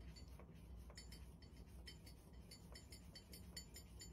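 Kitten eating dry kibble from a bowl: faint, quick crunching clicks, about three or four a second.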